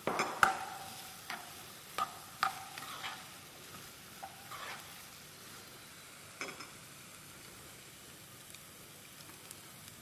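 A metal spoon stirring diced vegetables in a pot, clinking and scraping against the pan several times in the first three seconds and a few times after, over a faint steady sizzle of vegetables frying in oil.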